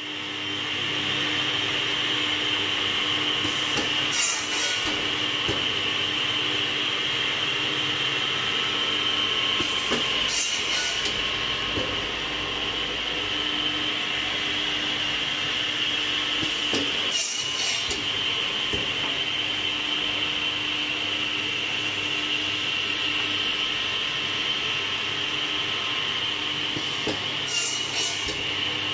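Defect-cutting cross-cut saw running with a steady whine, its blade cutting through wood four times in short bursts several seconds apart.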